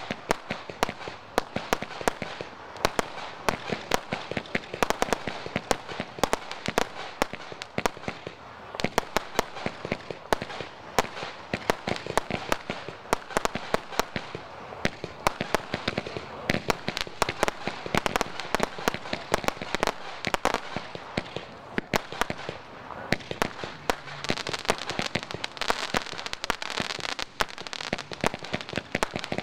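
A fireworks barrage fires shot after shot from the ground, a dense, unbroken run of sharp launch pops and small bursting bangs, many each second, with crackling between them.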